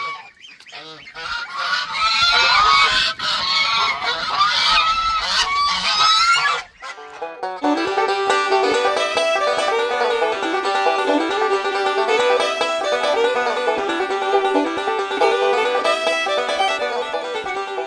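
Goslings and ducks calling noisily in short, wavering calls for about seven seconds. Then banjo music with a steady picked rhythm takes over.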